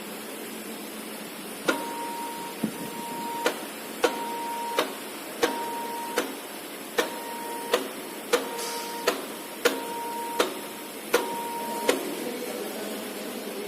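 Semi-automatic wire soldering machine cycling: a sharp click, a steady tone lasting less than a second, then another click, repeating about every second and a half some eight times over a steady mechanical hum, stopping near the end.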